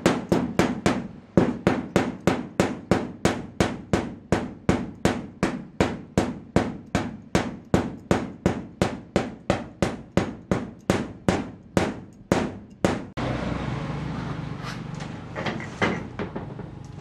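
A steel hammer striking a fresh arc-weld bead on steel plate again and again, about three sharp blows a second, knocking the slag off the weld. The blows stop suddenly about 13 seconds in, leaving a steady low hum with a few lighter taps.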